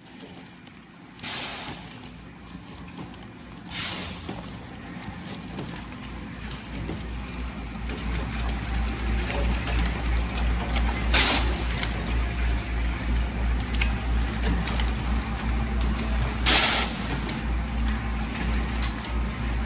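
Sachet lifting and sorting machine of a pouch packaging line running: a steady mechanical hum with a rhythmic pulse that grows louder after a few seconds. Four short hisses of compressed air cut through it, about a second in, at four seconds, at eleven seconds and near the end.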